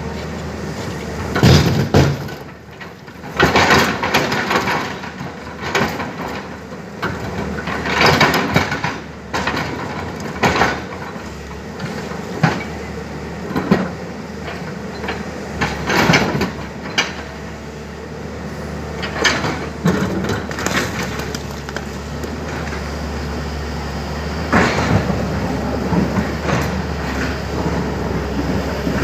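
Tata Hitachi excavator's diesel engine running steadily while it loads boulders, with repeated loud crashes and scrapes of rock against the bucket and truck body.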